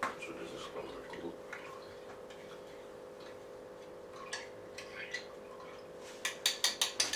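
A spoon stirring in a mug of yeast, warm water and sugar: a few light taps, then a quick run of clinks against the mug, about six a second, near the end.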